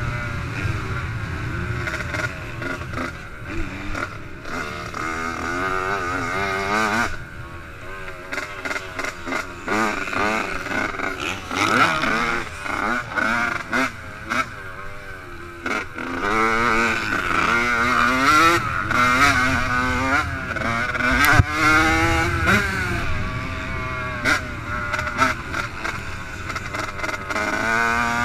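Yamaha YZ85 two-stroke motocross bike engine, heard from the rider's helmet camera, revving up and falling off over and over as it is ridden around a dirt track.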